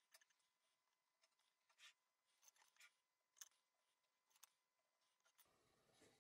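Near silence, with faint scratches and a few light, sharp clicks of dividers and a pencil working on a sheet of card against a steel ruler. A faint steady hiss comes in near the end.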